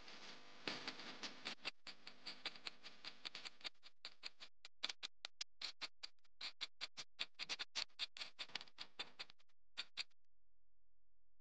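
Countdown timer sound effect: quick, slightly uneven ticking, several ticks a second, which stops abruptly about ten seconds in.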